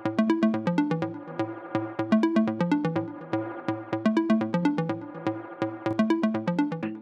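Electronic music with a steady beat and a repeating bass line.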